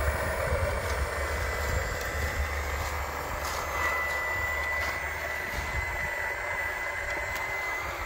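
Steady whine of a radio-controlled hydraulic excavator's pump and motor, a thin high tone over a busy mechanical hum, with a low rumble that eases about halfway and a few faint clicks.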